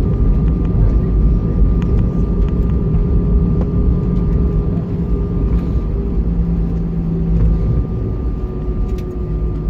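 Steady low rumble and drone inside an airliner cabin, with engine tones held steady and the rumble of the aircraft rolling on the ground after landing.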